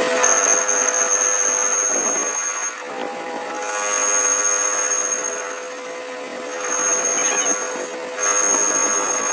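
A workshop machine tool runs with a steady hum while a high-pitched whine cuts in and out four times, each stretch lasting one to two seconds, as the tool works the metal shaft.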